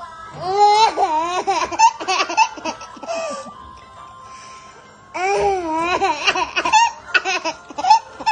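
A baby laughing in two long bouts of high, wavering giggles and squeals, the first starting about half a second in and the second about five seconds in, with a short pause between.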